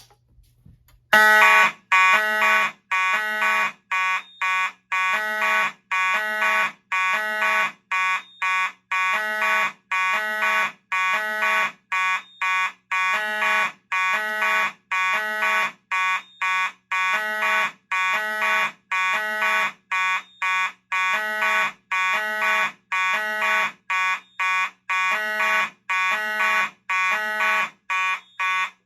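Pull station pulled with a click, then about a second later two fire alarm horns sound together: a Simplex 4903-9221 pulsing in march time and a Federal Signal 450 horn sounding the code-3 temporal pattern. The two rhythms overlap into an uneven, continuous pulsing that is loud throughout.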